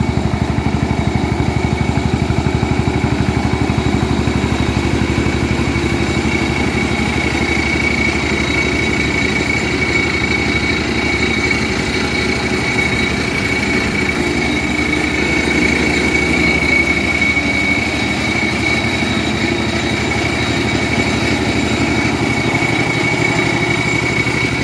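Single-cylinder diesel engine of a homemade grass-cutting machine running steadily with a fast, even beat. It drives a belt-driven rotary mower deck through grass, and a steady high whine sits over the engine.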